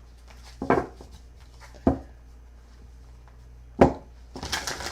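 Tarot cards being handled and shuffled on a table: a few sharp taps spaced a second or two apart, then a quick patter of card clicks near the end.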